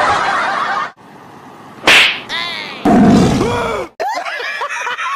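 A sudden sharp smack about two seconds in, followed by a falling, many-toned sound effect.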